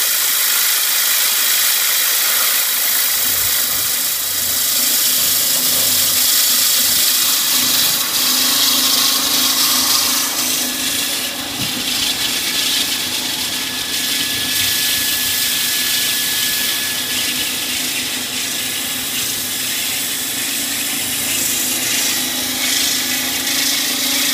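A PPHD123 CNC plate drilling, punching and marking machine running, its spindle drilling a steel plate: a loud, steady, hissy machine noise.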